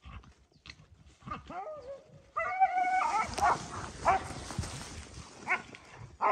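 Hunting dogs yelping and barking in short bursts, some yelps sliding in pitch. From about two seconds in there is a steady rustle of brush and grass, from someone pushing fast through the vegetation.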